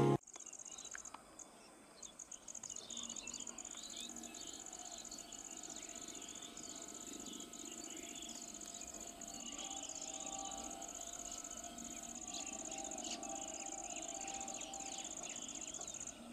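Insects trilling steadily, a high finely pulsing drone, while small birds chirp and call throughout.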